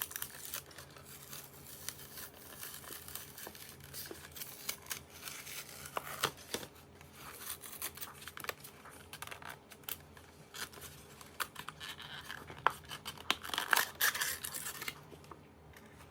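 Toy package of cardboard and plastic being ripped open by hand: irregular tearing and crinkling with scattered sharp clicks, busiest about six seconds in and again near the end.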